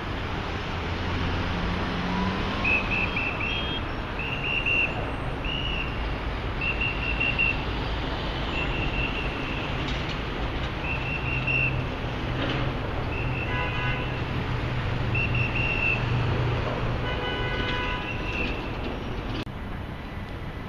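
City street traffic running steadily, with a short high electronic beep repeating every one and a half to two seconds. A car horn sounds twice in the second half.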